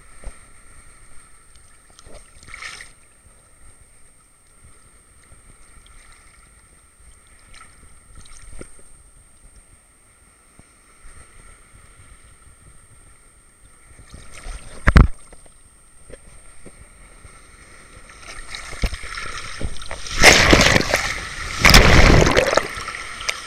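Small sea waves lapping and sloshing against an action camera's waterproof housing at the surface, with a faint steady high whine underneath. A sharp slap about 15 seconds in, then a wave breaks over the camera and churning whitewater rushes loudly over the housing near the end, in two surges.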